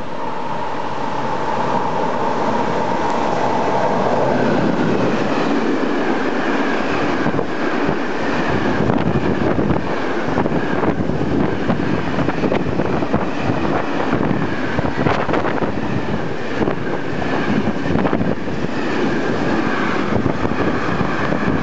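Electric-hauled freight train passing close by without stopping. A high whine falls in pitch over the first few seconds, then comes a long, loud, continuous clatter of wagon wheels over the rails.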